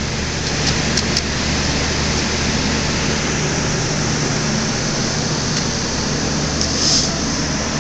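Steady hum and hiss of a running household machine, with a couple of faint clicks about a second in and a short brighter hiss near the end.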